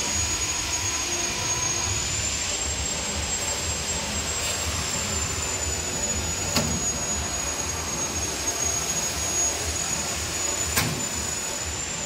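A high-pitched electric motor whine over a hiss, like a fast-spinning power tool or blower running steadily. Two sharp metal clicks come about halfway through and near the end.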